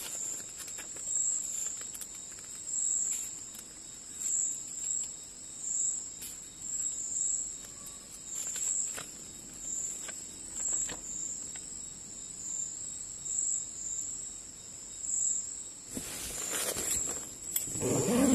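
Night insects chirping: a high, pulsing trill that swells about every second and a half. Faint paper rustles come from pages being turned, and near the end there is louder rustling of movement close by.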